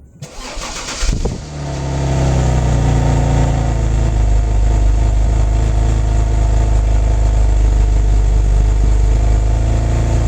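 2008 BMW X3 (E83) engine cranked by the starter for about a second until it catches, then idling steadily, the idle settling slightly lower over the next couple of seconds.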